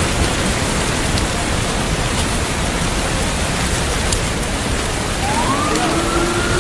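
Steady rain, a dense even hiss. About five seconds in, a faint tone rises in pitch and then holds.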